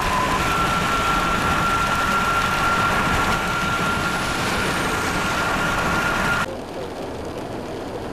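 Loud, steady rush of wind and passing highway traffic with a thin, steady whistle-like tone over it. Both cut off abruptly about six and a half seconds in, giving way to a quieter, steady rush.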